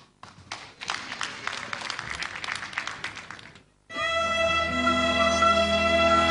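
An audience applauding for about four seconds. Then a folk orchestra starts playing, holding long steady notes.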